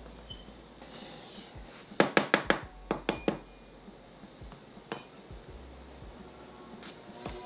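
Large kitchen knife tapping on a wooden cutting board while slicing sweet peppers: a quick run of about six sharp taps about two seconds in, a few more with a slight metallic ring just after, then single taps.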